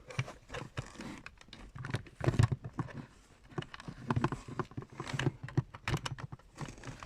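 Irregular clicks, knocks and rattles of small plastic equipment being handled, with a cluster of louder knocks about two seconds in.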